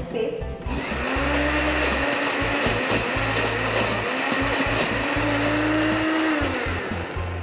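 Electric mixer grinder running for about six seconds as it grinds a thick jackfruit and soaked-rice batter. It starts about a second in and stops shortly before the end, its pitch dipping and recovering a few times under the load.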